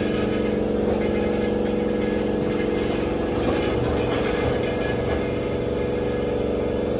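An engine running steadily at constant speed, a continuous hum with several pitched tones.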